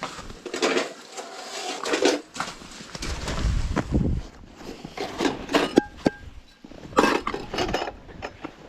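Knocks, scrapes and a few short clinks of things being handled, with a low rumble for about a second midway.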